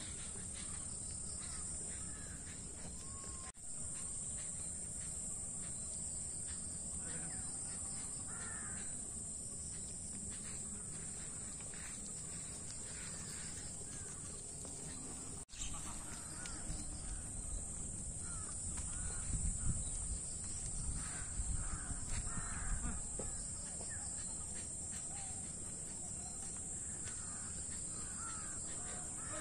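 Crows cawing again and again over a steady high-pitched insect drone and a low rumble. The sound drops out briefly twice.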